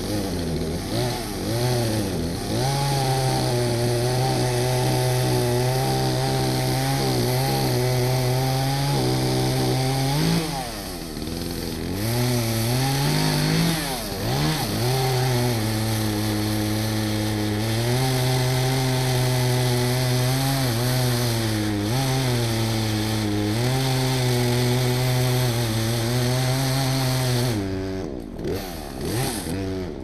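Two-stroke chainsaw running at high revs while cutting into a tree trunk for felling. Its revs sag and pick up again twice in the middle of the cut, then drop off near the end.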